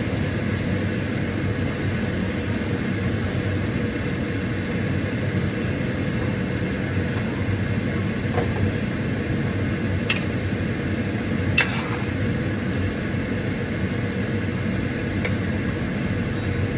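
A steady mechanical hum and rush, with a few light clicks in the second half.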